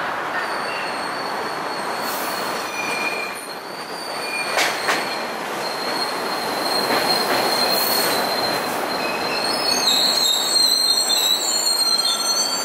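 MBTA Orange Line subway train pulling into a platform and slowing to a stop, its running noise overlaid by a steady high-pitched squeal that grows louder near the end.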